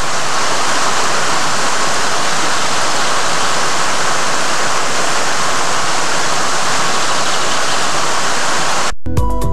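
Running water of a shallow, rocky creek: a steady, even rush that cuts off abruptly about nine seconds in, where music starts.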